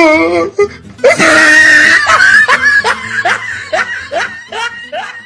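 Laughter: a loud burst about a second in, then a run of short repeated 'ha' bursts, about two or three a second, growing fainter.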